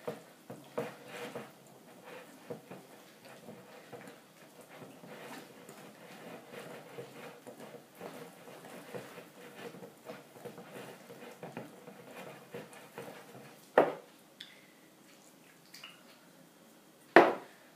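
Wire whisk beating thick cake batter in a ceramic bowl: steady, irregular wet squishing and light clicks of the wires against the bowl as milk is worked in. Two sharp knocks on the dishes stand out late on, a few seconds apart.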